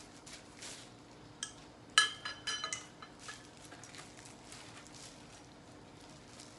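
Metal frame tubes of an elevated pet cot knocking together as they are handled and fitted, with one sharp ringing clank about two seconds in, followed by a few lighter clicks.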